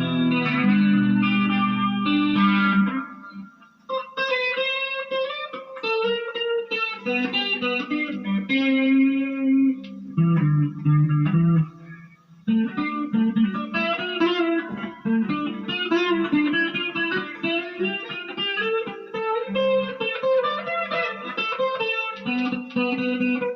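Electric guitar played through a Marshall MG15GFX 15-watt 1x8 practice combo amp with its flanger effect switched on: strummed chords first, then runs of single notes, with two short breaks in the playing.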